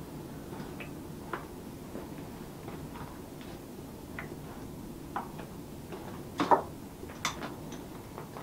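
Irregular light clicks and knocks of small objects and tools being handled at a workbench, with a sharper double knock about two-thirds of the way in, over a steady low hum.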